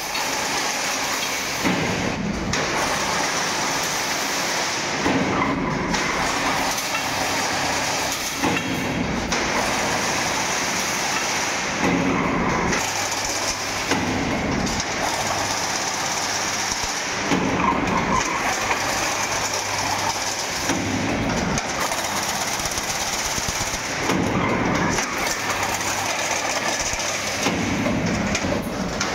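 Fully automatic chain link fence weaving machine running: a steady mechanical noise that dips and swells in a regular cycle about every three seconds as the machine works through each weaving cycle.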